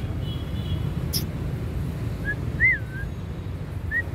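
A stray dog whining in short, high, rising-and-falling whimpers, twice around the middle and twice near the end, over a steady low hum of distant traffic. A single sharp click comes about a second in.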